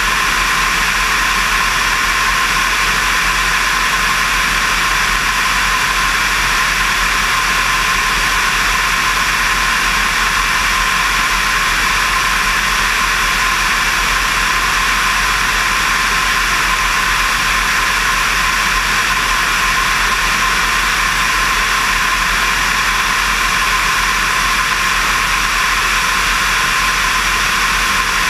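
Steady rush of in-flight wind over a wing-mounted camera on a DV20 Katana light aircraft in cruise, with a constant engine and propeller drone beneath it. A steady high tone runs through the noise, and there are no changes in power or pitch.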